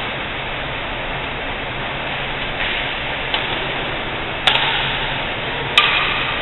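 Badminton rackets striking a shuttlecock: two sharp hits about a second and a half apart, over a steady hiss and low hum.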